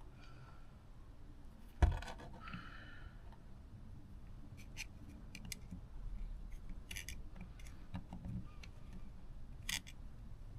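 Small metal carburettor parts being handled: scattered light clicks and clinks, with one sharp knock about two seconds in.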